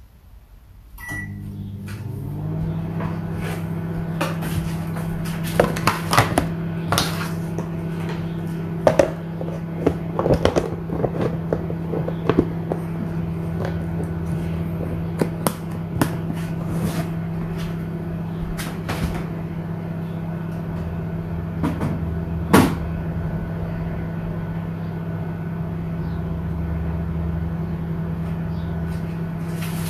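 Microwave oven beeps once as it is started, then runs with a steady hum while reheating food. Scattered kitchen clicks and knocks sound over the hum, the sharpest about two-thirds of the way through.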